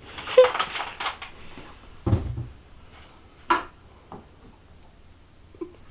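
Kitchenware and objects handled on a kitchen counter: a rustling clatter at the start, a dull thump about two seconds in, a sharp knock at about three and a half seconds, then a few small taps.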